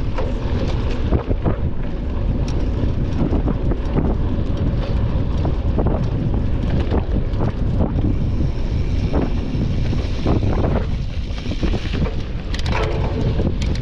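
Wind buffeting the microphone of a camera riding along on a moving mountain bike: a dense low rumble, broken by frequent short, irregular knocks and rattles from the bike running over rough ground.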